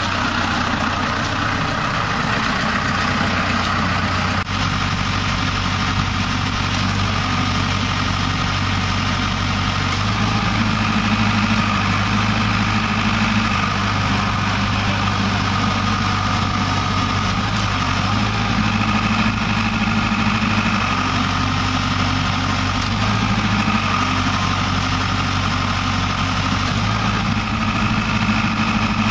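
Tractor engine idling steadily with its hydraulics running a disc hedger's boom, a steady whine over the low engine hum. The tone shifts slightly about ten seconds in.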